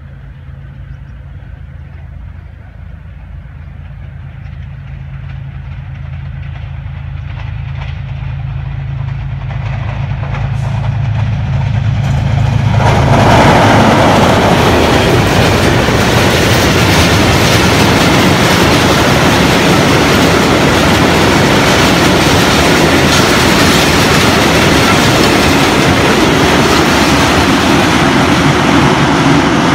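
GE U20C (GEU-20) diesel-electric locomotive approaching at speed, its diesel engine drone growing steadily louder, then passing close just before halfway through. After it, the express's coaches go by with a loud, steady rush and clatter of wheels on the rails.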